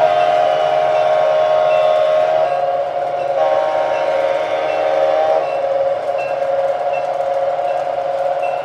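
Electronic horn of an MTH Premier Santa Fe FT model diesel locomotive blown twice in long chords, the second starting about three and a half seconds in, over the steady running sound of the train.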